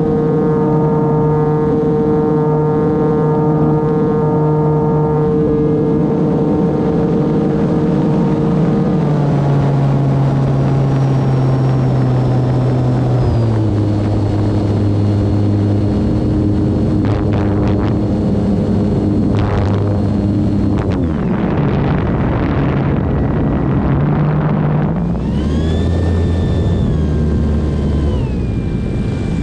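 E-flite Turbo Timber Evolution's electric brushless motor and propeller running with wind rush, its whine stepping down in pitch twice as the throttle is eased and rising again near the end.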